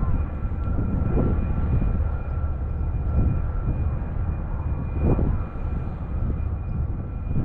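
Steady low outdoor rumble that swells now and then, about a second, three seconds and five seconds in, with a faint steady hum of two thin tones above it.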